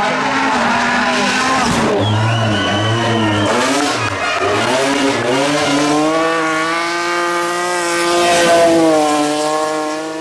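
Rally car engines revving hard at full throttle, pitch sweeping up and down through gear changes, over a run of clips of different cars. In the second half an engine is held high and climbing through a drift, with tyres squealing.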